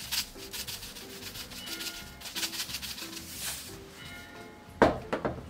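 Seasoning shaken out of a spice jar over a cooking pot: a run of quick dry rattling shakes for about three and a half seconds, over soft background music. A sharp knock comes near the end.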